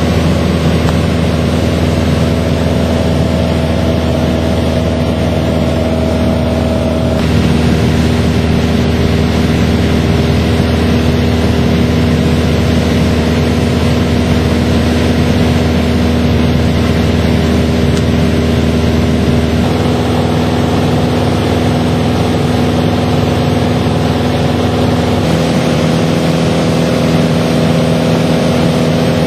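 Piston engine and propeller of a light aircraft droning steadily in cruise, heard inside the cabin. The pitch of its hum shifts slightly about a quarter of the way in and again twice later.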